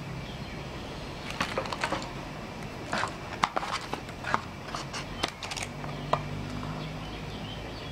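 Paper leaflets and a user's manual being handled and lifted out of a cardboard box: rustling with scattered sharp clicks and taps, busiest in the middle, over a steady low hum.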